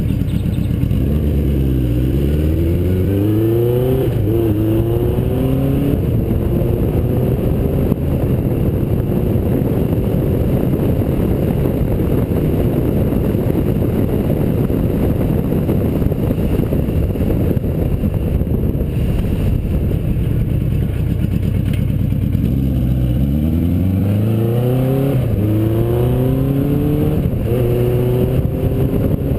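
Suzuki GS850's air-cooled inline-four engine, heard from the rider's seat, pulling away and upshifting, its pitch climbing in steps. It then holds a steady cruise under a rush of wind noise on the microphone, and near the end it accelerates through the gears again.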